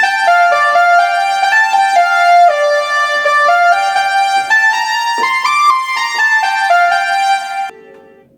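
Korg Pa300 arranger keyboard playing a melody on one of its Indian voices: a single line of short notes stepping up and down. The playing stops near the end.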